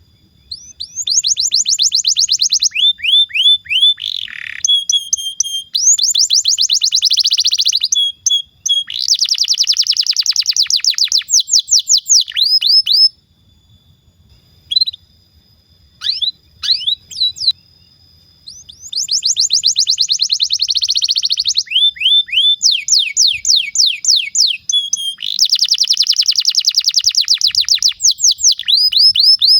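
Domestic canary singing in long rolling trills of rapid repeated high notes, with runs of down-slurred notes between them. The song breaks off for several seconds about midway and then starts again.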